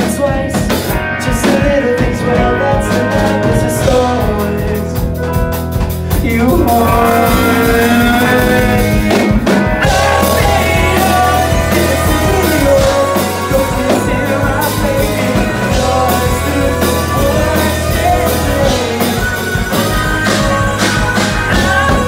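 Live rock band playing at full volume: drum kit, keyboard and electric guitar, with a male singer's voice over the top.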